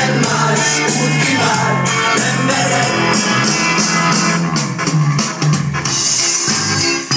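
Recorded music played loud by DJs over a party sound system, with a steady drum beat and pitched instrumental parts.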